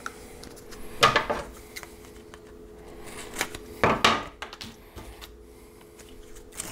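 Handling noise as a piece of foil tape is pulled off and a new piece laid on a cracked plastic bumper: two loud bursts of rustling and scraping, about a second in and about four seconds in, with a few small clicks between, over a faint steady hum.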